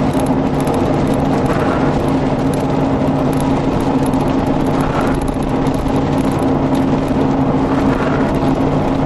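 Road and engine noise inside a moving car: a steady drone of tyres and engine with a constant low hum.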